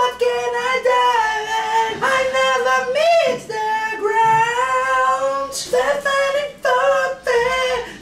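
A man singing high, long-held notes into a handheld karaoke microphone, with no instruments heard, breaking briefly between phrases.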